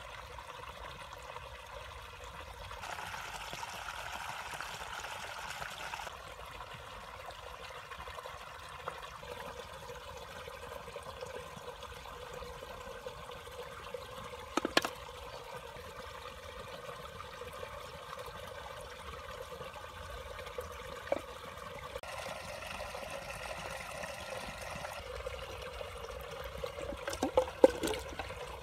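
Muddy water running and trickling steadily into a round concrete-lined pit. A sharp short sound comes about halfway, and a cluster of louder sharp sounds comes near the end.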